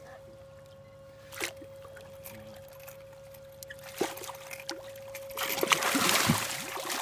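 Water splashing and sloshing near the end, after a few quiet seconds with a faint steady hum and a couple of knocks: a hooked striped bass thrashing at the surface as it is brought to the boat.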